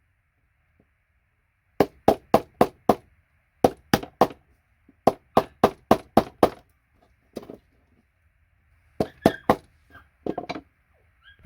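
Hammer tapping a paint scraper to knock gold-plated connectors off circuit boards. The sharp knocks come in quick runs of four to six, about four or five a second, with short pauses between runs.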